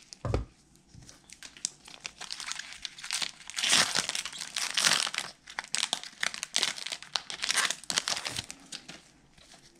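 Trading-card pack wrapper crinkling and rustling as the opened pack is handled and the cards are worked out of it, in irregular crackles that are heaviest about three to five seconds in. A soft low bump comes just after the start.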